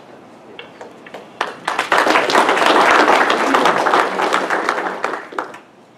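Audience applauding. It starts about a second and a half in, holds at full strength for a couple of seconds and dies away near the end.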